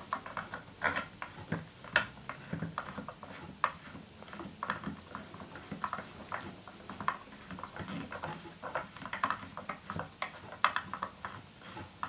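Long barrel bolt being screwed into the wooden wheel support and rails of an Ashford Traditional spinning wheel: a run of irregular small clicks and scratchy creaks of metal and wood.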